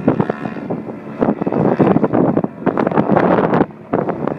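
Wind buffeting the microphone in loud, uneven gusts, over the steady drone of a large radio-controlled aerobatic plane's DLE 111 twin-cylinder two-stroke gas engine in flight.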